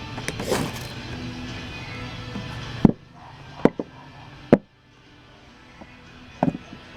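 Ferro rod scraped hard along a striker to light fatwood, giving one rasping strike about half a second in. Then it goes quiet apart from a few sharp knocks.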